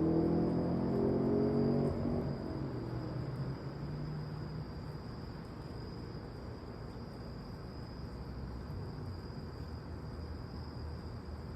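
Steady high-pitched chirring of night insects, with a low droning hum that fades away in the first few seconds.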